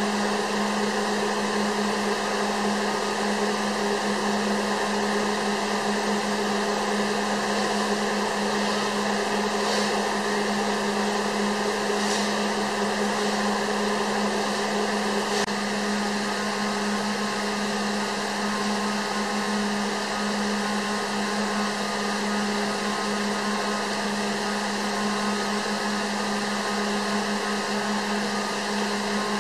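A steady machine-like hum with a constant low tone over an even hiss, unchanging throughout, with a few faint ticks near the middle.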